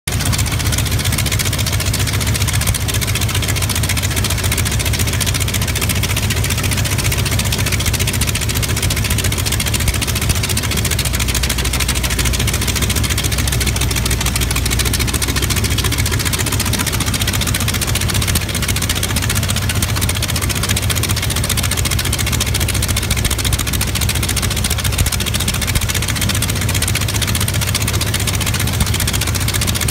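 Yak-52's nine-cylinder Vedeneyev M-14P radial engine idling steadily with its propeller turning; the engine is newly installed.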